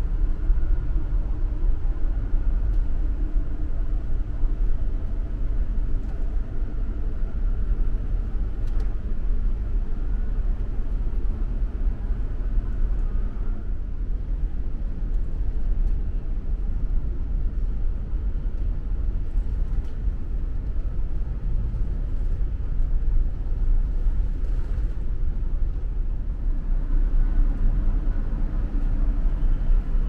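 Steady low rumble of a car ferry's engines and machinery, heard on board the ship.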